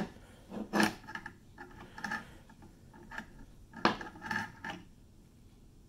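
Handling noise: a few separate sharp clicks and knocks of hard objects being moved about, some with a short rattle. The loudest comes right at the start and another about four seconds in.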